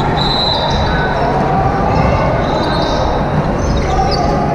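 Echoing gymnasium noise of a volleyball game: sneakers squeaking on the court now and then, ball impacts and indistinct voices.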